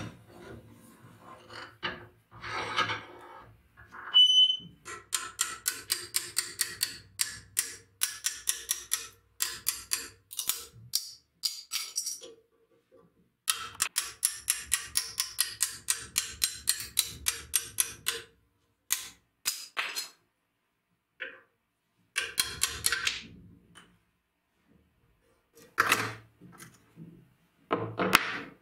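Rapid sharp metal-on-metal taps, about three a second, in two long runs with a few single knocks before and after. A hammer is driving a chisel under the handle scales of a rusty knife held in a vise to split them off the tang.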